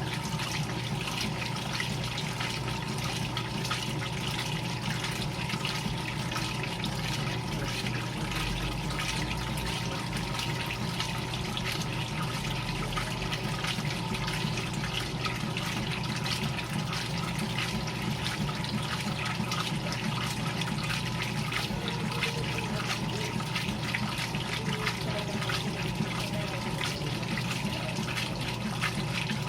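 GE Filter-Flo washing machine running with water churning in the tub over a steady low motor hum.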